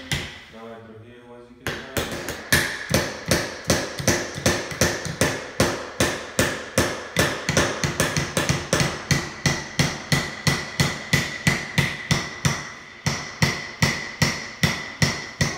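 Small hammers driving nails into wooden kit pieces: a steady run of sharp strikes, about two and a half a second, starting about two seconds in, with a faint metallic ring under the blows.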